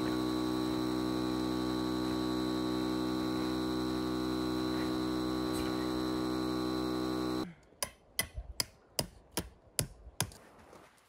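Electric air pump humming steadily as it inflates an inflatable tent, then cutting off suddenly about seven seconds in. About eight sharp hammer strikes follow, driving a tent stake into gravel.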